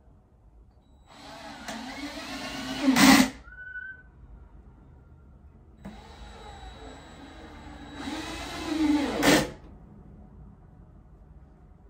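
Cordless drill driving screws into wooden steps: two runs of a few seconds each, the motor's pitch rising and each run loudest just before it stops.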